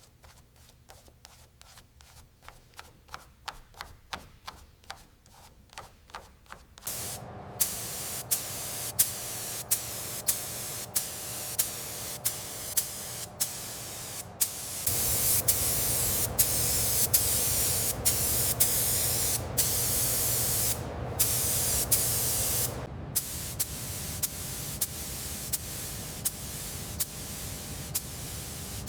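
Faint, evenly spaced clicks for the first few seconds, then a paint spray gun hissing loudly in long runs broken by regular brief gaps. The hiss is loudest in the middle stretch.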